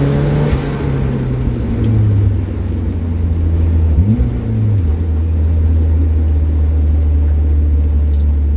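Turbocharged Mazda MX-5's four-cylinder engine heard from inside the cabin, its revs dropping in steps as the car slows, with a brief rise in revs about four seconds in, then settling to a steady low drone at low revs.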